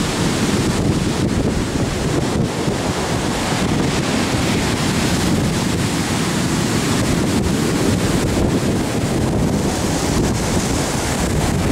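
Heavy storm surf breaking and washing up a sandy beach in a steady rush, with strong wind buffeting the microphone.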